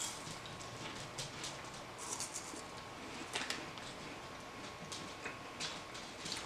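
Quiet eating sounds: scattered soft clicks and crackles of people chewing a chocolate wafer bar and handling its wrapper, a little busier about two seconds in and again about three and a half seconds in.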